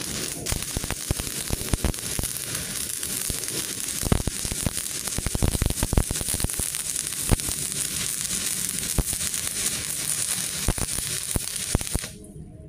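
Stick-welding arc from an IE161 MOSFET inverter welder set to 120 amps, crackling and sizzling steadily with frequent sharp pops, then cutting off suddenly near the end as the arc is broken.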